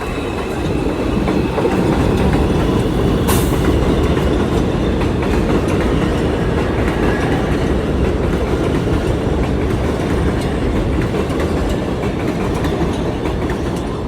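New York City subway train running through on the track, a loud steady rumble of wheels on rail with a faint high wheel squeal fading near the start and a sharp click about three seconds in.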